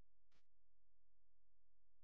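Near silence: a faint steady low hum, with one brief faint sound about a third of a second in.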